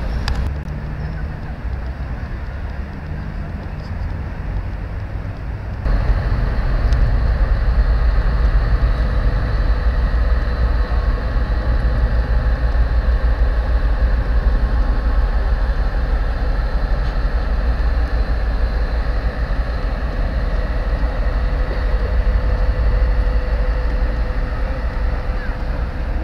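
Massed sirens on a boat's horn array sounding together as a dense, sustained drone over a deep rumble. It jumps sharply louder about six seconds in, and a single steady tone stands out near the end.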